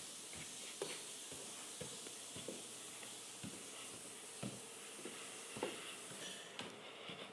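Footsteps climbing wooden stairs: soft, irregular thumps about every half-second to second over a steady faint hiss.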